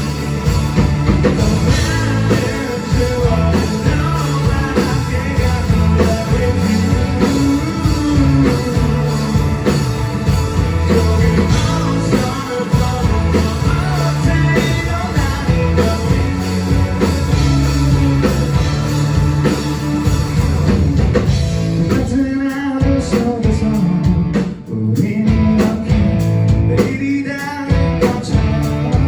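Rock band playing live with a singer over guitar and drums. The band drops out briefly a few times near the end.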